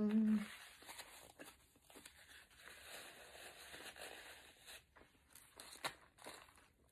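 Paper napkin rustling and crinkling as it is wiped across the mouth and then folded in the hands, with a few sharper crinkles near the end. A short hummed "mm" at the very start.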